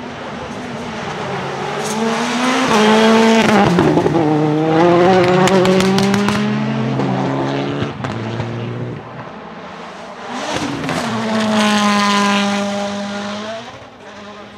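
Rally cars driven hard past, one after another. The first, a Citroën C3 WRC with a 1.6-litre turbocharged four-cylinder engine, revs up and down through quick gear changes with sharp crackles and pops. A second car comes in about ten seconds in, its engine rising and then holding high revs before fading.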